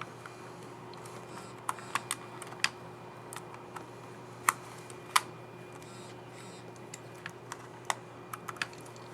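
Sharp, irregular clicks of keys on a Dell Latitude 3310 laptop's scissor-switch keyboard being pressed, about a dozen with uneven gaps, over a faint steady hum.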